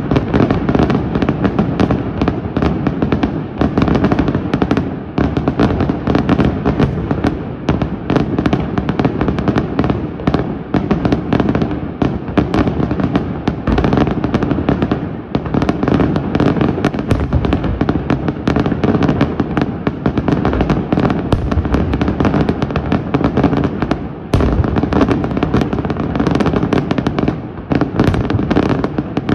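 A fireworks display firing a dense, continuous barrage of bursts and crackles, with many overlapping booms and no real pause. The barrage dips briefly about fifteen and twenty-four seconds in.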